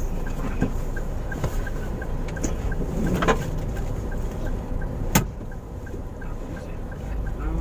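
Car cabin with the car stopped in traffic and its engine idling: a steady low rumble, with a faint regular tick about three times a second and a few sharp clicks, the loudest about five seconds in.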